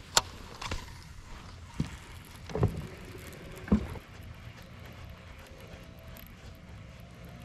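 Baitcasting reel clicking into gear just after the cast, a sharp click, followed by a few low knocks during the retrieve over a steady low rumble of wind and water on a fishing boat.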